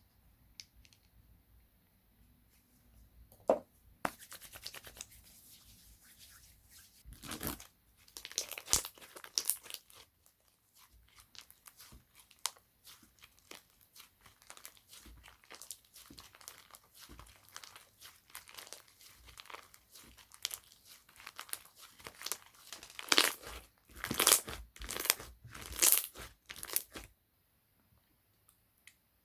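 Hands stretching, folding and pressing slime, giving dense crackling and popping clicks with a sticky tearing sound. The clicking starts a few seconds in, comes in louder bursts near the end, and then stops.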